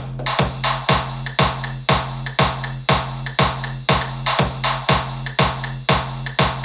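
EDM drum-machine pattern from the Lucid Mission expansion's Amsterdam kit playing back in Native Instruments Maschine: a four-on-the-floor kick about twice a second over a steady sub bass, with percussion on top.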